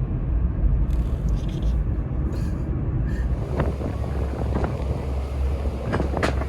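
A moving vehicle's steady low rumble with a wash of noise over it, and a few faint knocks in the second half.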